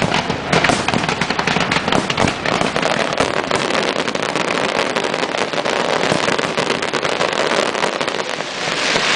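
Aerial firework shells bursting during a display: a dense, continuous run of sharp bangs and pops in quick succession.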